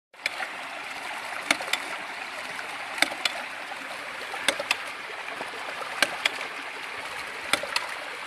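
Homemade hydraulic ram pump working in shallow stream water: its valves knock sharply in pairs, a pair about every one and a half seconds, as the pump cycles over a steady rush of running water.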